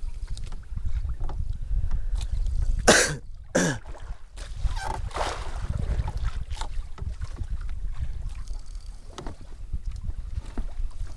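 Wind rumbling on the microphone aboard a small fishing boat, with two loud bumps about three seconds in and scattered lighter knocks.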